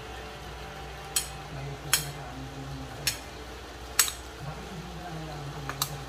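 Metal spoon clinking against a ceramic plate while stirring diced raw fish salad: about five sharp clinks, roughly a second apart.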